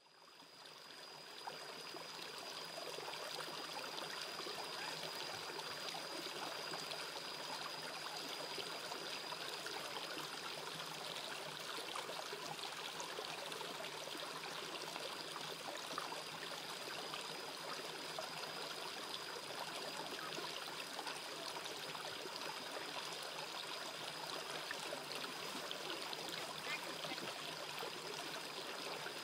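Shallow rocky stream flowing steadily over stones, fading in over the first couple of seconds, with a thin steady high tone above the water noise.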